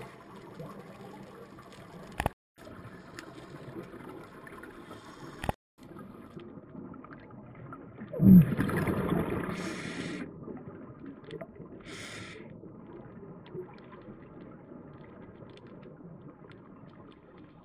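Underwater ambience picked up through a camera housing on a scuba dive, a steady low murmur. About eight seconds in, a diver's regulator exhalation sends out a loud gurgling rush of bubbles lasting about two seconds, and a short hiss follows a few seconds later. Two brief clicks with dropouts come earlier.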